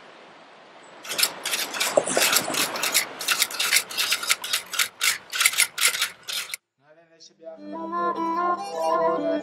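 A rapid, uneven run of sharp typewriter-style clicks, a few a second, as the on-screen text types itself out; it cuts off suddenly. After a short gap, music with held, pitched tones begins near the end.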